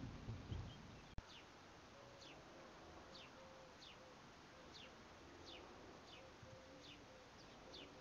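Faint outdoor ambience in which a bird repeats short, high, downward-sliding call notes about once every three-quarters of a second, with soft lower notes beneath. In the first second a low rumble cuts off abruptly.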